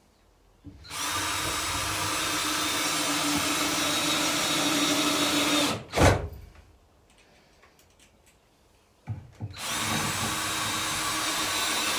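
Cordless drill-driver running screws into a timber frame: one long run of several seconds ending in a sharp knock about halfway through, then a couple of short starts and a second long run.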